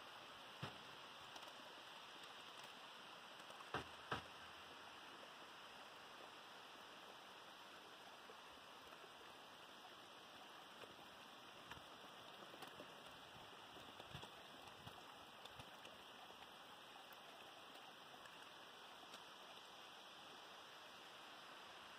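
Faint, steady hiss of water: a small stream running down wet rock, with rain. A few sharp clicks come in the first four seconds.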